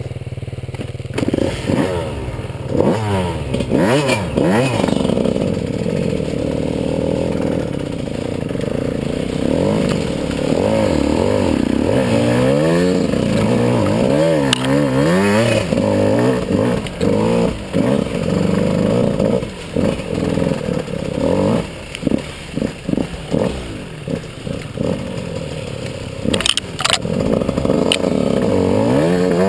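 Dirt bike engine revving up and down over and over under throttle as the bike climbs a steep snowy slope, dropping off briefly a few times around two thirds of the way through. Brush scrapes and clatters against the bike on top.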